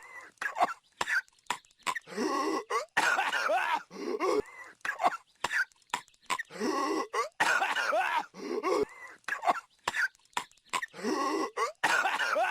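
Cartoon character Patrick Star coughing over and over, in fits of hacking coughs with sharp clicks between them and short pauses. The same stretch of coughing repeats about every four and a half seconds.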